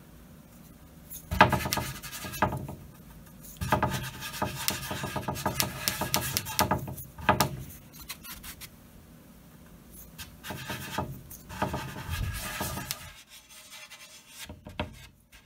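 Small paintbrush scrubbing dark colour into the edge of a shellacked mahogany top: scratchy rubbing strokes in three spells, with short pauses between them, dying away near the end.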